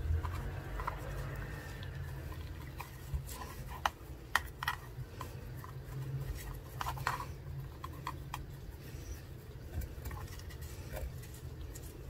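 Light taps, clicks and scratches of small materials and tools being handled, scattered irregularly, over a low steady hum.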